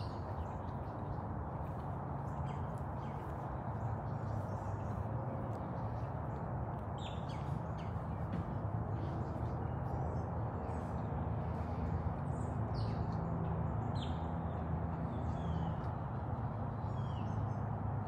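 Scattered short bird chirps over a steady low hum.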